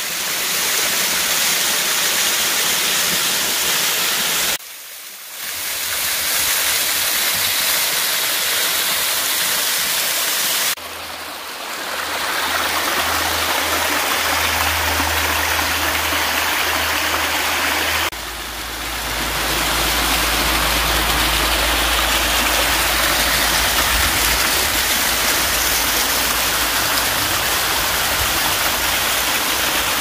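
Small waterfall and cascading mountain stream: a steady, even rush of water splashing over rock ledges. The rush dips briefly a few times as the view changes, and a low rumble runs underneath in the latter half.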